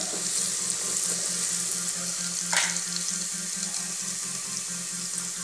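Hot oil sizzling in a pan with crushed garlic and spices, a steady hiss, as salt is poured in. A brief tap about two and a half seconds in.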